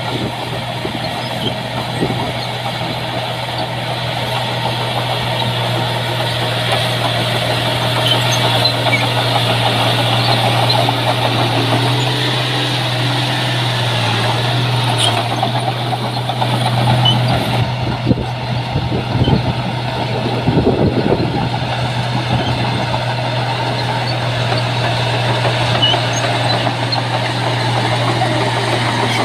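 Heavy-equipment diesel engine running steadily under work, its pitch rising a little in the middle, with a few knocks and rattles about two-thirds of the way through.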